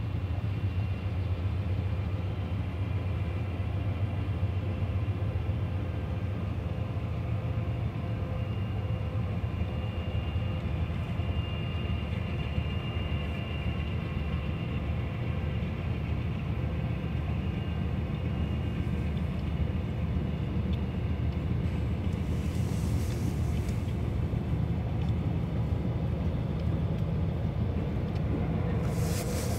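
CSX freight train rolling past, a steady low rumble of the cars and diesel locomotives with faint high squealing tones. There is a short hiss about three-quarters of the way through and another near the end.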